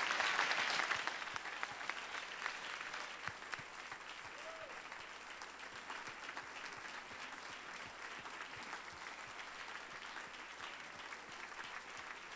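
Audience applauding, loudest at the start and settling after a second or two into steadier, quieter clapping.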